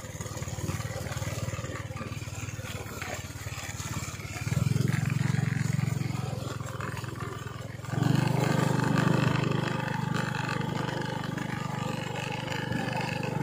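A small engine running steadily, louder about four and a half seconds in and again from about eight seconds in.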